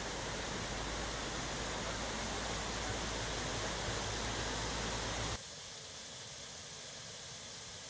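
Steady rush of flowing floodwater with a low rumble under it. About five seconds in it cuts sharply to a quieter, thinner rush of water pouring over the washed-out edge of a road.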